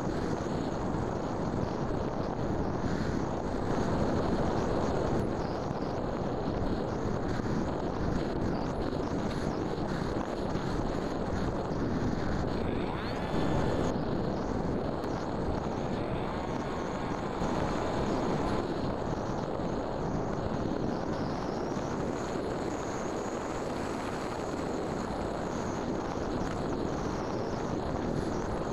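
RC flying wing in flight, heard from its onboard camera: steady wind rushing over the microphone mixed with the drone of its propeller motor, with a faint rising whine about halfway through.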